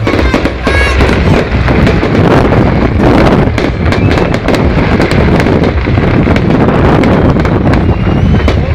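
Fireworks display: a dense, continuous crackle of many small bursts and pops, loud throughout, with a brief whistle about a second in.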